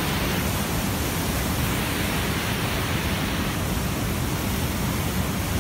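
Steady rush of whitewater in a fast creek tumbling through rocks.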